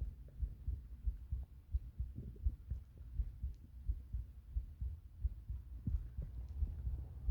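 Human heartbeat heard through the body, a continuous run of dull low thumps over a steady low hum.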